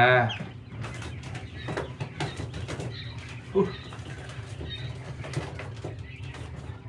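Quails moving about: irregular light ticks and scratches over a steady low hum, with one short, louder soft sound about three and a half seconds in.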